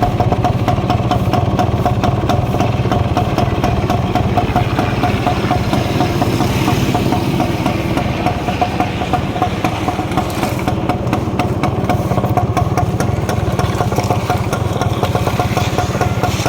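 Yamaha DT 175's single-cylinder two-stroke engine idling steadily.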